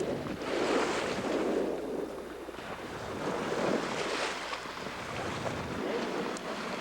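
Seawater rushing and splashing along a sailboat's hull and bow wave under way, in surges that swell and fade every second or two, with wind buffeting the microphone.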